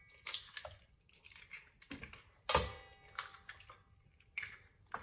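Eggs being cracked against the rim of a stainless steel mixing bowl: a handful of separate sharp taps and cracks. The loudest comes about two and a half seconds in, with a brief metallic ring from the bowl.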